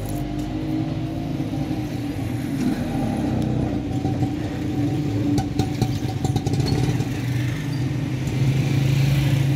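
A motor vehicle engine running steadily close by, growing louder toward the end, with a few light clicks about halfway through.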